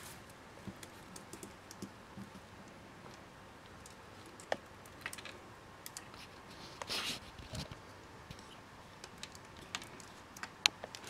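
Faint, scattered small clicks and ticks of pliers working thin jewellery wire as it is wrapped around a loop. There is a sharper click about four and a half seconds in, a brief scraping rustle around seven seconds, and another click near the end.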